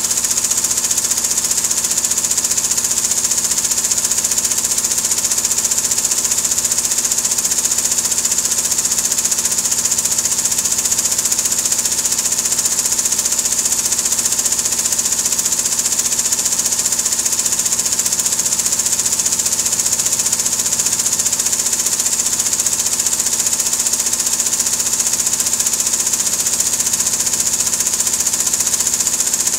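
Tajima multi-head commercial embroidery machine running at speed, its needles stitching in a rapid, steady rhythm.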